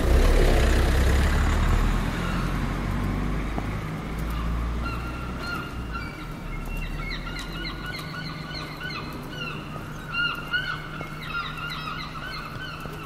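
A low rumble, loudest at the start, fades away over the first several seconds. From about five seconds in, a group of birds calls in many short, quick, overlapping notes.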